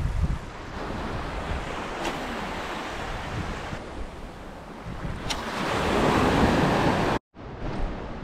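Small waves washing up a sandy beach, with wind buffeting the microphone. The wash swells louder past the middle, then cuts off suddenly near the end.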